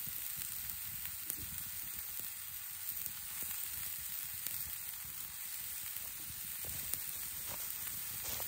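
Mushrooms and vegetables frying in a skillet over a campfire: a steady sizzling hiss with scattered small pops and crackles.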